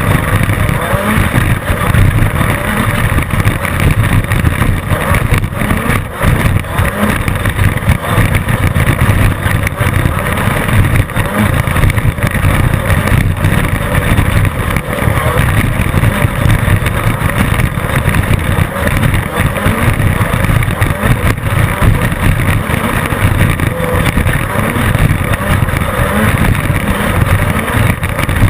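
Class 10 off-road race car running hard over rough desert terrain: a loud, steady engine drone under constant knocks and rattles from the chassis.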